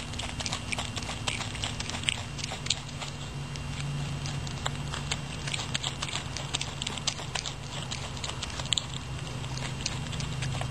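Common brushtail possum chewing a snack: a run of quick, irregular small clicks and crunches of its teeth, over a steady low hum.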